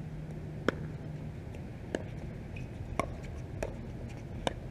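Pickleball rally: hard paddles striking the plastic ball, five sharp pocks spaced about a second apart.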